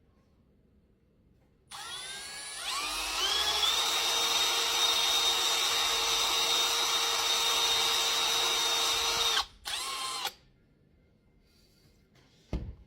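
Power drill spinning up and running steadily, driving a tap to thread a screw hole in die-cast metal. It stops after about nine seconds, gives one brief second burst, and there is a single low knock near the end.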